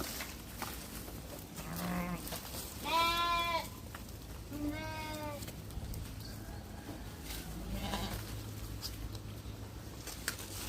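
Sheep bleating: two clear, wavering bleats about three and four and a half seconds in, with fainter bleats before and after.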